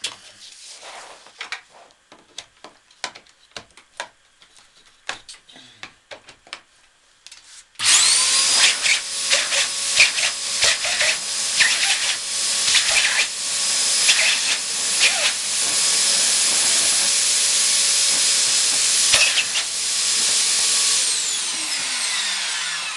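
Light handling clicks and rustles, then about eight seconds in the cold fog generator's electric blower motor is switched on and runs with a steady high whine, the airflow fluttering irregularly as a gloved hand pats and presses on the nozzle to force air back through the liquid intake tube and blow it clear. Near the end the motor is switched off and winds down with a falling whine.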